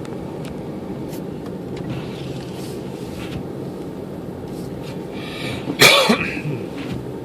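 Steady car driving noise, with one loud cough near the end.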